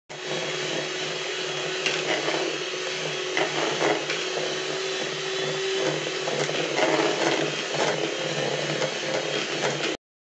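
Electric hand mixer running steadily, its beaters whipping instant coffee, sugar and water into a thick, frothy coffee batter in a plastic bowl. It cuts off suddenly near the end.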